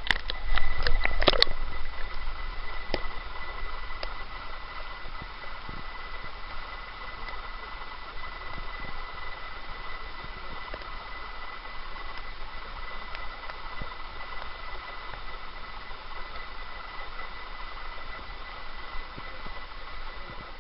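Steady hiss of underwater ambience picked up by the camera, with a thin steady whine running through it. A quick cluster of clicks and knocks comes in the first second and a half.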